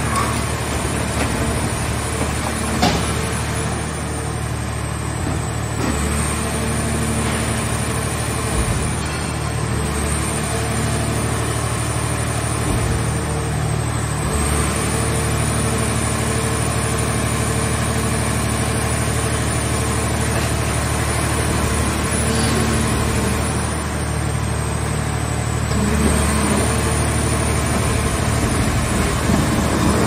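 Hydraulic power unit of a mobile car-shell baler running steadily under load, a constant motor drone with a high whine that dips in pitch and recovers several times as the press lids work.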